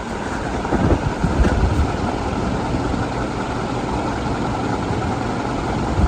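Heritage 56-inch four-blade industrial ceiling fan running at full speed: a steady rush of air from the steel blades with an uneven low pulsing, and no bearing noise.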